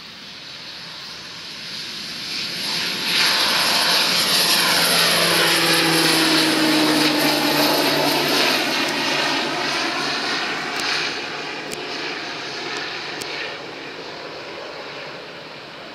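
Cessna 208B Caravan's single PT6A turboprop engine and propeller at take-off power as the plane climbs out past, growing loud, the propeller tone dropping in pitch as it goes by, then fading as it climbs away.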